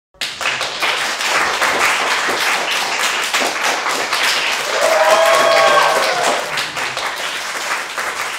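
Applause from a small audience, starting suddenly and dense with quick claps, with a short cheer rising over it about five seconds in and the clapping thinning toward the end.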